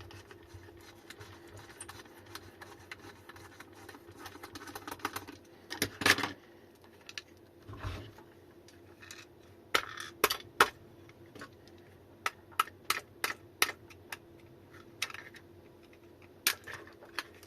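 Small screws and the plastic battery case being handled and set down: irregular sharp clicks and taps, a few at first, then a quicker run in the second half over a faint steady hum.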